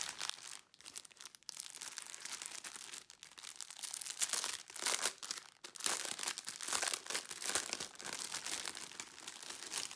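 Clear plastic bags crinkling and rustling irregularly as hands open a pack of small bags of diamond painting drills and handle it.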